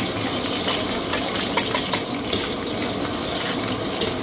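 Duck offal and green beans stir-frying in a pan: a steady sizzle, with a few sharp clacks from the stirring about one to two and a half seconds in.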